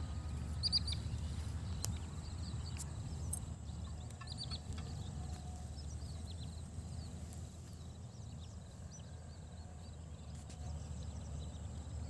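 Outdoor ambience: a steady low rumble of wind on the microphone, with short, high bird chirps scattered through the first few seconds.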